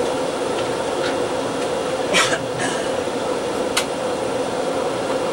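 Steady running noise of a steam frigate's engineering-plant machinery underway: a constant hum with a steady mid-pitched tone. A few short sharp sounds cut through it, the loudest about two seconds in.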